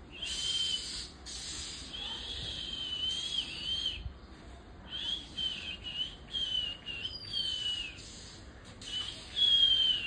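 Oriental magpie-robin singing: a string of clear, wavering whistled phrases with short gaps between them, the loudest phrase near the end.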